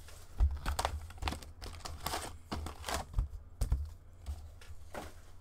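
A cardboard SP Authentic hockey card box being opened and its foil-wrapped card packs handled: irregular crinkling, rustling and light clicks.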